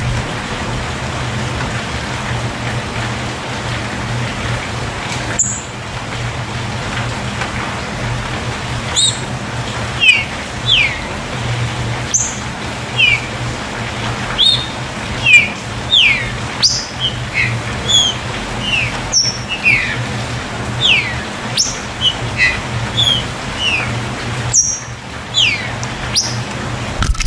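Steady rain with water pouring off a roof, and over it birds giving short, downward-sliding chirps, one or two a second from about five seconds in.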